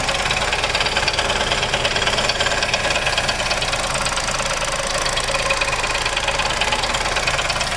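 Chevrolet Onix Plus three-cylinder engine idling under an open hood with a steady, rapid knocking rattle while the brake pedal is held down. The noise is heard only with the brake pressed; the owner thinks something engages inside the engine when the brake is pressed and keeps knocking.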